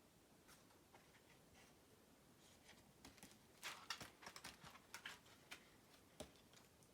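Faint rustling and a run of soft clicks from a picture book's pages being handled and turned, starting about two and a half seconds in, over near silence.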